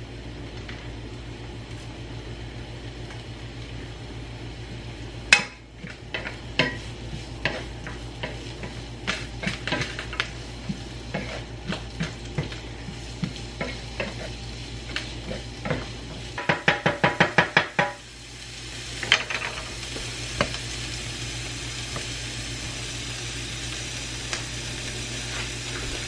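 Chopped cabbage and carrots sizzling in hot olive oil in a nonstick frying pan, stirred with a wooden spatula that scrapes and clicks against the pan. A quick run of about nine short pulses comes about two-thirds of the way in.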